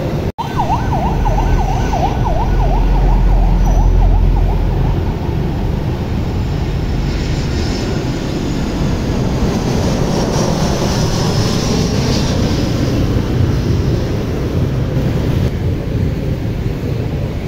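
Steady city street traffic noise. For about the first three seconds a siren yelps in rapid up-and-down sweeps, over a deep rumble.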